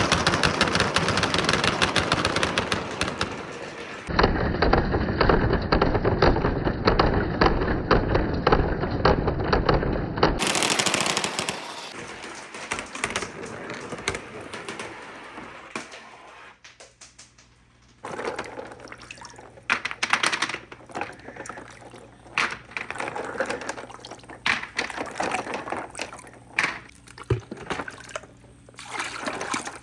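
Marbles rolling and clattering down a handmade wooden marble run, a dense rattle of clicks for the first twelve seconds or so. It dies away to almost nothing, then starts again about eighteen seconds in as more scattered clacks and short rattles.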